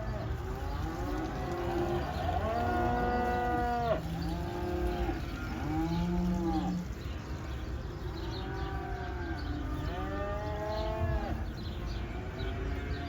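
Beef cattle from a herd of cows with calves mooing: about six drawn-out calls, one after another and some overlapping, each about a second long.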